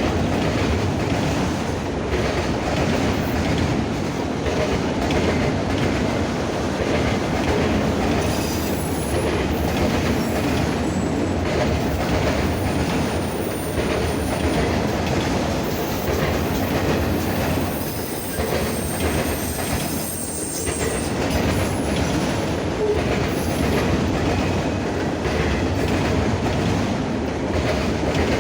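Norfolk Southern freight cars rolling past, a steady rumble with the wheels clicking over rail joints. A thin high-pitched wheel squeal comes and goes from about eight seconds in until about twenty seconds in.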